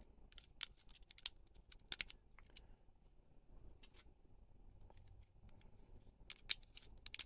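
Scattered small, sharp clicks and taps of steel utility blades being slid into and pushed down in a spring-loaded plastic blade magazine, with a quick cluster of clicks near the end.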